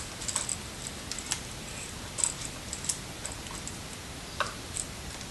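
Vinyl electrical tape being pulled off the roll and wrapped around a receptacle: scattered short crackles and clicks.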